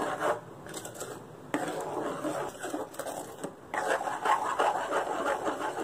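A spoon stirring thick carrot and gram-flour batter in an aluminium kadai, scraping against the pan in an irregular run of strokes. It is softer for the first second and a half, then louder.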